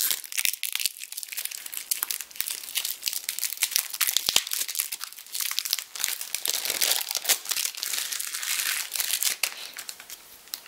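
Cellophane wrapper on a deck of playing cards being picked at and peeled off by hand: continuous crinkling and crackling of the thin plastic film, full of small sharp clicks.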